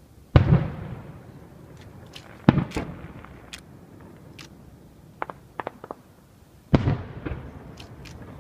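Aerial firework shells bursting: three heavy booms, each followed by a rolling echo, about half a second in, at two and a half seconds and near seven seconds. Lighter sharp pops and cracks fall between them, several in quick succession at about five and a half seconds.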